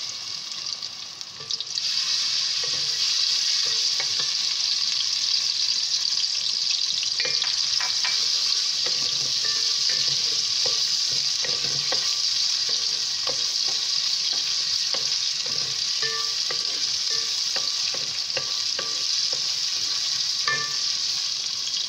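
Sliced onions frying in hot oil in a metal pot: a steady sizzle that gets louder about two seconds in, with a wooden spoon scraping and knocking against the pot as it stirs.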